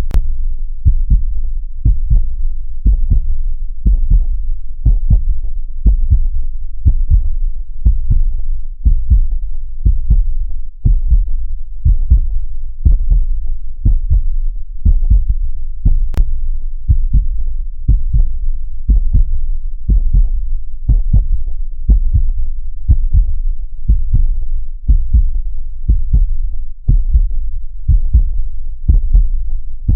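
Heartbeat sound playing in a steady rhythm of low, lub-dub double thumps, about one beat a second.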